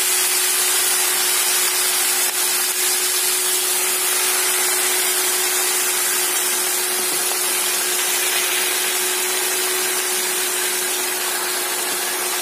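Fresh spinach leaves sizzling in hot oil in a karai, a steady hiss as the freshly added leaves begin to wilt, with a steady hum underneath.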